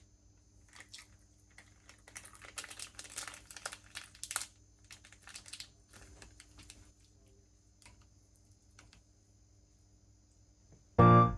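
Light crinkling and rustling of packaging with scattered small clicks, busiest in the first half and dying away after about seven seconds; a chiming music track starts right at the end.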